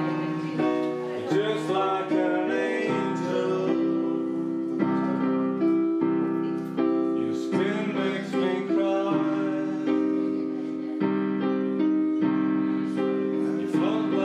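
Digital piano played live, a steady run of chords with a melody over them.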